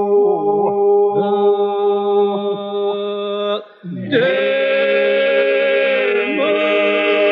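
Men's folk group singing an unaccompanied Albanian Lab polyphonic song: voices weaving over a held low drone. About halfway through, the singing breaks off briefly, then the whole group comes back in.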